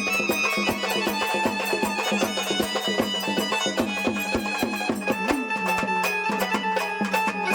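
Instrumental Marathi folk music: a held melody over a steady drone, driven by quick, evenly repeated hand-drum strokes.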